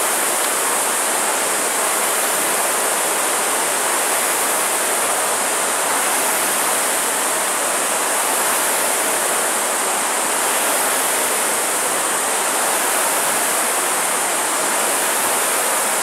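Many air-resistance rowing ergometers being rowed at once, their fan flywheels making a steady whooshing rush of air.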